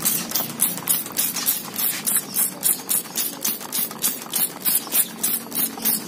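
Handheld trigger sprayer squirting in quick repeated strokes: short hisses, about four a second.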